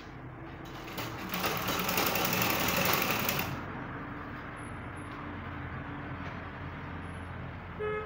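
Black treadle sewing machine stitching a zipper seam in one short run with a fast, even stitch rhythm, starting about a second in and stopping about halfway through.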